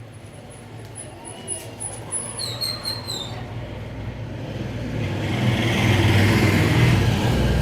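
Motor vehicle engine rumble that builds up and is loudest about six to seven seconds in, as of a vehicle passing close by. A short high squeak comes about two and a half seconds in.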